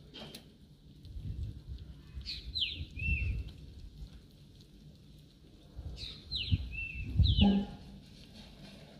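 A bird calling over and over, about four times: each call is a quick falling whistle followed by a short level note. Low rustles and bumps come in between and are loudest about three seconds in and again near the end.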